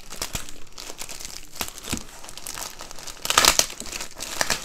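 Thin clear plastic packaging sleeve crinkling and rustling as hands work it off a rolled canvas, with a louder burst of crackling about three and a half seconds in.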